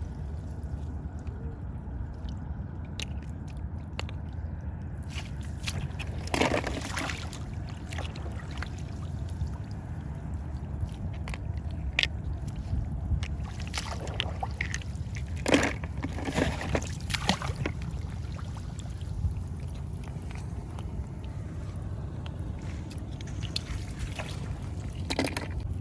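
Hands sloshing and splashing in shallow, muddy rice-paddy water while feeling for snails, a few short splashes standing out, the loudest about two-thirds of the way through, over a steady low rumble.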